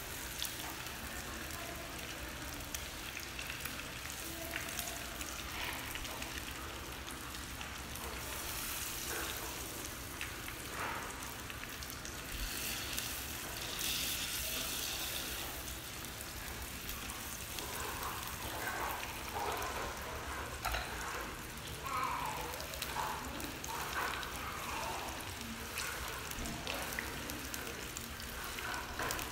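Spring rolls sizzling as they fry in hot oil in a small pan, a steady crackling hiss with occasional light clicks.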